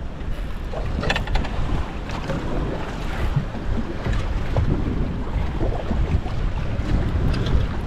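Wind buffeting the microphone over water sloshing around a small boat, with a few sharp knocks a little after a second in.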